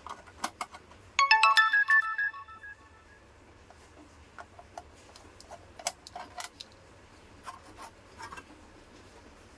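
A short electronic phone tune of quick stepping notes plays about a second in and lasts about a second. Scattered small clicks and knocks of hand work on the fan's base sound around it.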